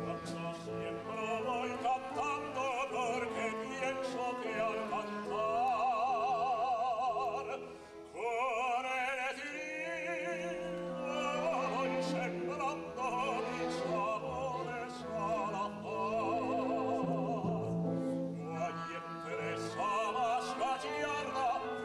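Zarzuela singing: operatic voices with wide vibrato over orchestral accompaniment, with a short dip about eight seconds in.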